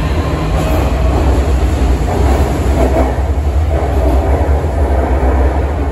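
Beijing Subway Line 6 train pulling out of the station and running away down the tunnel: a loud, steady low rumble of wheels and traction motors.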